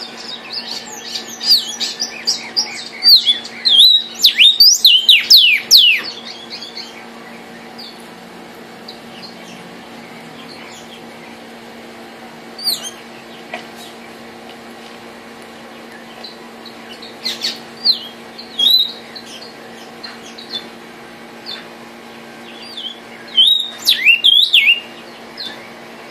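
Male vermilion cardinal singing in phrases of loud, quick, downslurred whistles: one long run over the first six seconds, then short phrases about halfway through and near the end.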